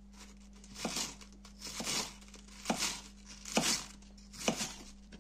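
Kitchen knife shredding a head of white cabbage on a wooden cutting board: five crisp slicing strokes about a second apart.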